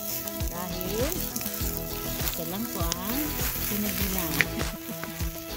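Steak sizzling on a grill over campfire embers, with music playing over it; the music has steady notes and sliding pitches.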